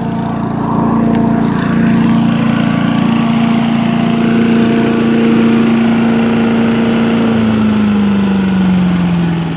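Simplicity 5-25 leaf vacuum shredder's 5 hp, 206cc Briggs & Stratton horizontal-shaft engine running steadily at speed, with the rush of air drawn through the vacuum hose. About seven seconds in, the engine note falls as the throttle is pulled back to low.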